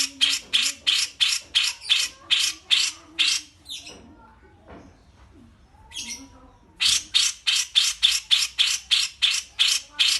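Songbird giving runs of loud, harsh repeated notes, about four a second, breaking off a little over three seconds in and starting again about seven seconds in.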